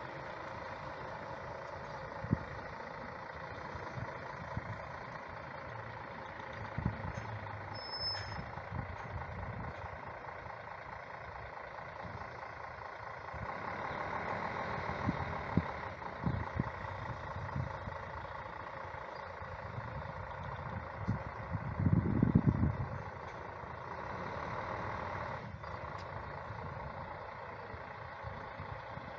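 Setra S 416 GT-HD coach's diesel engine running as the coach manoeuvres slowly, growing louder about halfway through as it turns and comes closer, with a brief louder low rumble about three-quarters of the way through.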